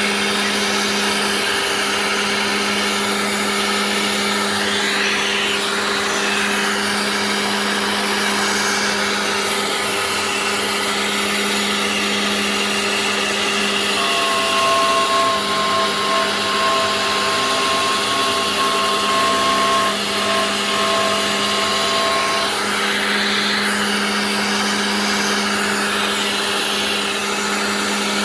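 Genmitsu 3020 PRO MAX CNC router spindle running steadily while milling: a constant low hum and a broad hiss. About halfway through, a two-note whine joins for about eight seconds.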